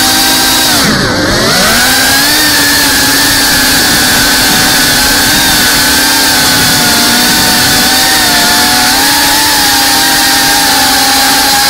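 Whoop FPV quadcopter's motors and propellers whining, recorded on board. The pitch dips sharply about a second in, then climbs back and holds steady.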